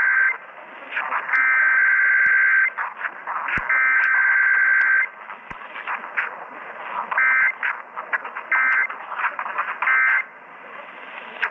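Emergency Alert System SAME data bursts received over a radio: a harsh two-tone digital warble. The header burst repeats three times, each about a second long, followed by three short end-of-message bursts, with radio static and crackle between them.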